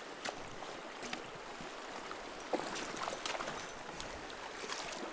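Shallow river running over rocks in a riffle, a steady rushing wash, with scattered short clicks and knocks through it.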